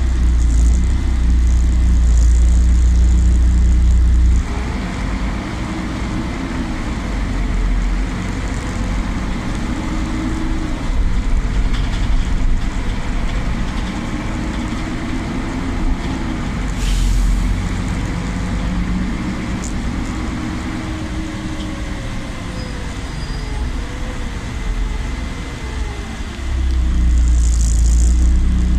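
Interior sound of a Solaris Urbino 12 city bus under way: engine and drivetrain running, with a whine that rises and falls as the bus drives. A deep rumble is heard at the start and again near the end, and there is a brief hiss of air a little past halfway.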